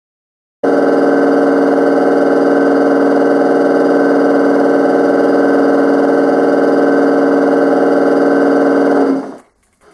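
ESU sound decoder in a gauge 1 BR 110 electric locomotive model playing a steady electric-locomotive hum of several fixed tones while the model stands still. It starts abruptly about half a second in and stops a little after nine seconds.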